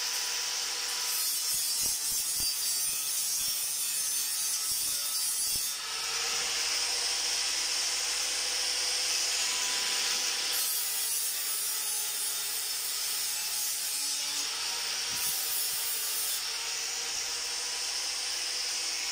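DeWalt angle grinder running with its disc pressed against a stainless-steel railing pipe: a steady motor whine under the hiss of the disc rubbing the steel. The rubbing changes a few times as the disc is pressed on and eased off, around one, six and ten seconds in.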